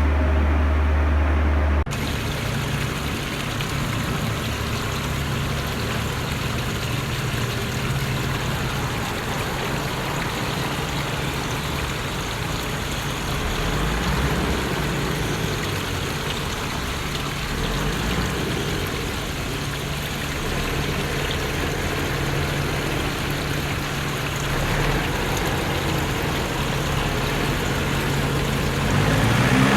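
Small electric motors of toy remote-control construction vehicles, an excavator and a dump truck, running steadily under a rushing hiss like sand pouring; the sound changes abruptly about two seconds in.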